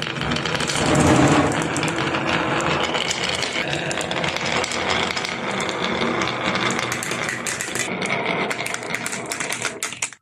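Many marbles rolling and clattering down a marble-run slope: a steady, dense rattle full of quick clicks that starts and stops abruptly.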